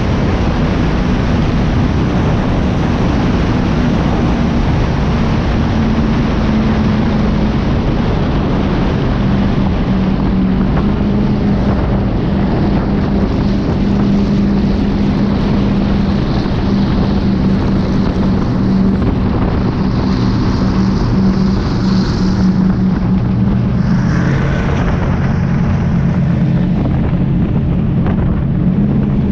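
Go-fast powerboat's engines running steadily underway, a steady low drone under wind buffeting the microphone.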